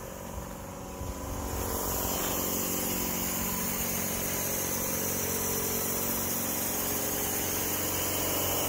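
An engine idling steadily, getting louder about a second and a half in and then holding level.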